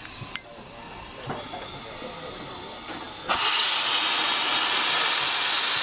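Heisler geared steam locomotive: a sharp click about a third of a second in, then, a little past the middle, a sudden loud steady hiss of steam blowing out low around the running gear.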